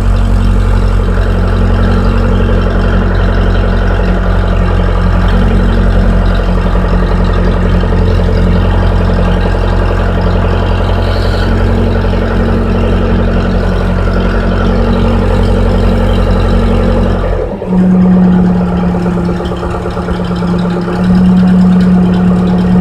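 Case 580E backhoe's diesel engine running steadily, heard from inside the cab. Its deep rumble drops away sharply about three-quarters of the way through, leaving a steadier, higher hum.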